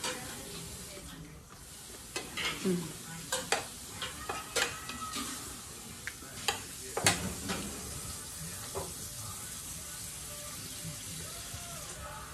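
A person eating: chewing and mouth smacks, with a run of sharp clicks of a fork against a plate between about two and eight seconds in, over a steady hiss.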